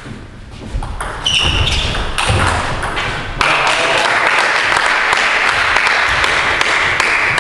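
Table tennis rally: a few sharp clicks of the ball off the bats and table over about two seconds. Then steady applause once the point is won.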